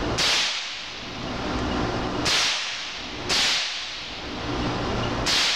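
Ruger 10/22 semi-automatic .22 LR rifle fired four times at an uneven pace, each shot a sharp crack with a short echo off the concrete of the indoor range, over a steady low hum.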